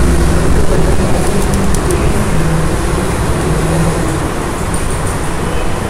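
Steady background rumble with hiss, and a few faint ticks about one and a half to two seconds in.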